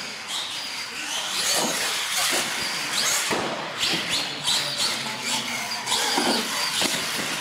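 R/C monster truck driving hard across a concrete floor: its motor and drivetrain whine, rising and falling in pitch as the throttle is worked, over hissing tyre noise.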